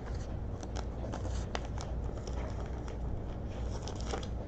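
Scattered light clicks and rustles of trading cards being handled, over a low steady hum.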